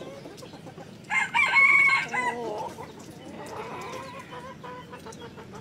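Chickens: a rooster crows once, loudly, about a second in, its call dropping in pitch at the end. A softer, longer call follows among the flock's clucking.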